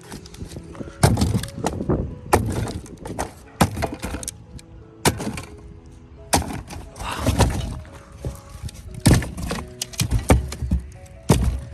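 Irregular clattering knocks and cracks of hard objects, such as glass and plastic, being handled and knocked together.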